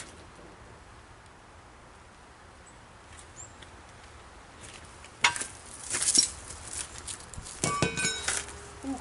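Steel tools clinking and clanking at a truck's front wheel: a pipe extension and socket being handled and set on the lug nuts. The clanks start about five seconds in, and one rings briefly near the end.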